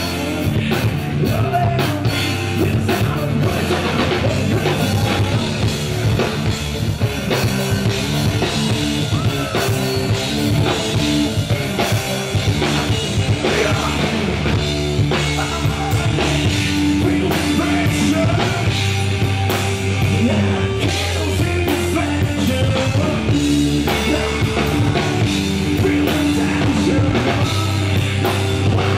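Rock band playing live: a man singing over electric guitar, bass guitar and a drum kit, loud and unbroken.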